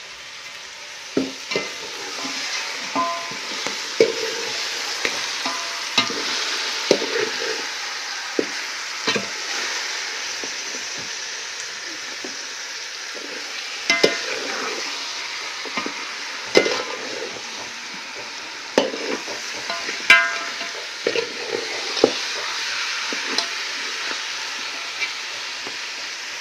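Raw mutton frying in oil with onion and turmeric masala in an aluminium pot, a steady sizzle with irregular sharp knocks and scrapes as the meat is stirred and turned.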